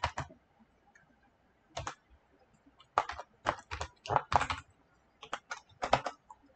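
Typing on a computer keyboard: irregular runs of sharp keystrokes with short pauses between them.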